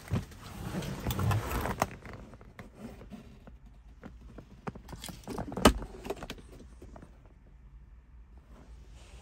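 Handling sounds inside a car's cabin. Near the start there are a couple of seconds of rustling and light clicks as the key fob is handled. A little past halfway comes a single sharp knock as the centre-console armrest lid is opened.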